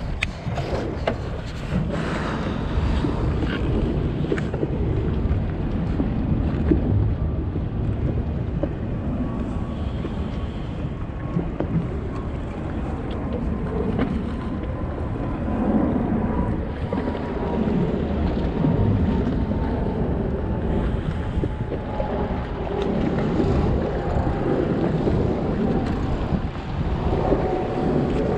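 Wind buffeting the microphone and water lapping around a small boat on open water, a steady noisy rush throughout. A faint high tone slowly drops in pitch through the second half.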